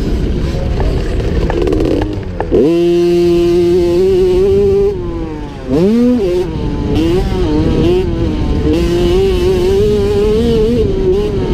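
50cc two-stroke motocross bike engine at race pace, held high, then dipping as the throttle is shut and climbing sharply as it is opened again, about two and a half seconds in and again about six seconds in. After that the revs waver up and down, with wind rushing over the on-board microphone.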